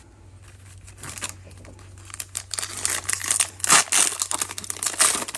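Foil wrapper of a 2021 Panini Prizm baseball card pack crinkling and tearing as it is ripped open by hand. The crackle starts about two seconds in and gets louder, with a few sharp rips.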